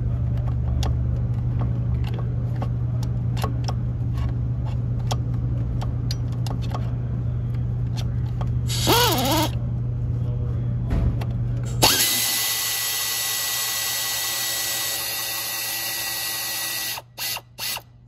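A handheld power tool runs with a steady whine for about five seconds from about twelve seconds in, backing out a valve cover bolt, and then gives two short bursts near the end. Before it there is a steady low hum with scattered small clicks.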